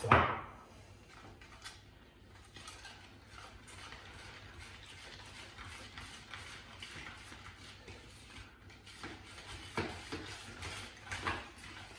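Powdered sugar and melted butter being mixed by hand in a bowl: a utensil scraping and clicking against the bowl over and over, with a loud knock at the start and a few harder strokes near the end.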